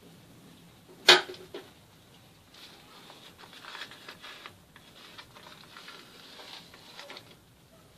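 A sharp clack about a second in, then soft rustling and crinkling as a thin chocolate sponge cake layer is handled and lifted off a baking tray.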